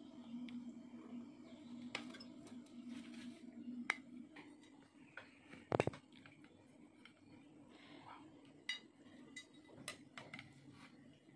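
Serving spoons and a rice paddle scraping and clinking faintly against a glass plate and bowl, with one sharper, louder clink about six seconds in. A low steady hum runs under the first few seconds.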